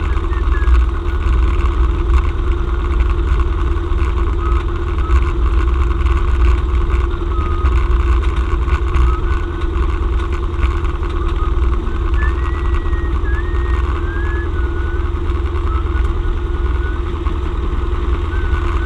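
Cessna 172M's four-cylinder Lycoming engine and propeller running steadily at low taxi power, a constant drone heard from inside the cabin.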